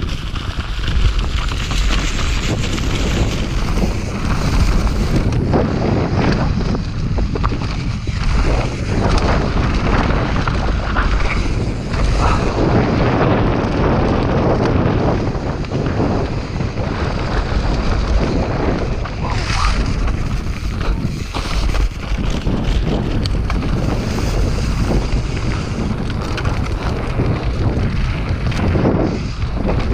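Wind buffeting the microphone of a bike-mounted action camera, over the rumble and rattle of a mountain bike rolling fast down a rough dirt trail. The noise is continuous and uneven, surging and easing without a break.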